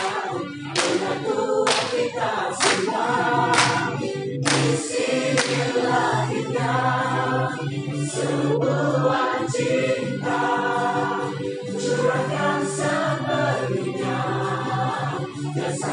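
A choir singing a song with musical accompaniment, marked by sharp beats about once a second that are strongest in the first five seconds.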